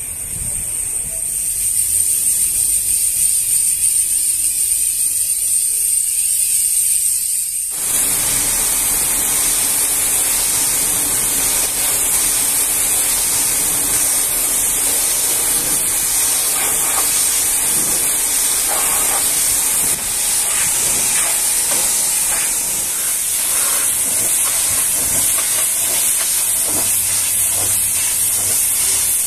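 High-pressure washer jet spraying water onto a truck cab: a steady hiss. For the first eight seconds it is a thin, high hiss, then it suddenly becomes a fuller, louder spray hiss that holds steady.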